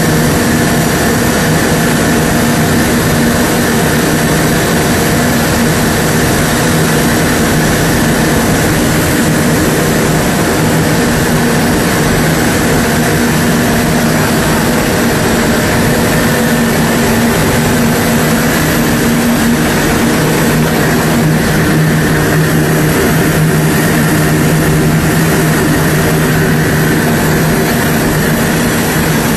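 Single-stage plastic recycling and granulation line running: a loud, steady machine drone with a constant low hum and a fainter high tone, unchanging throughout.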